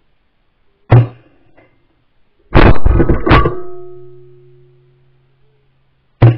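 Shotgun shots at flying ducks: one sharp shot about a second in, then several shots in quick succession around two and a half to three and a half seconds in, and another shot right at the end, each ringing briefly and fading.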